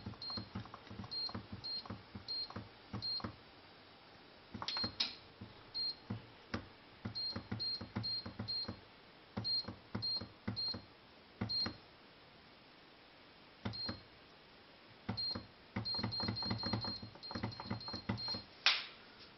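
VITEK multicooker's control panel beeping once for each button press as the cooking timer is stepped down: short high beeps, singly and in quick runs, each with a faint click of the plastic button. A sharper click comes near the end.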